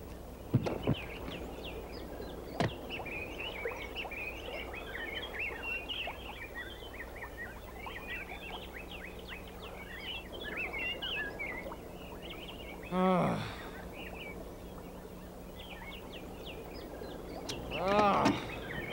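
Small birds chirping steadily in the background. Two louder drawn-out pitched cries stand out, one about 13 seconds in and another near the end, and there are a couple of light knocks in the first three seconds.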